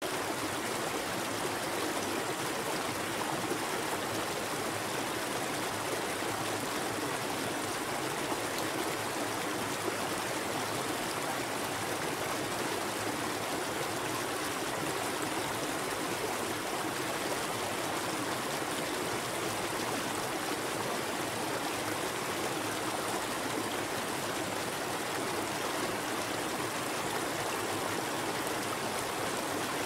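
Waterfall cascading into a river pool: a steady, even rush of water that does not change.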